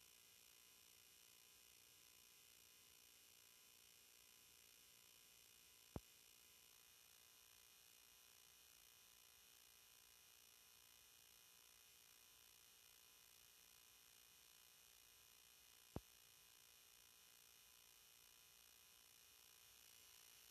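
Near silence: a faint steady electronic hiss and hum, broken by two very brief clicks, about 6 seconds and 16 seconds in.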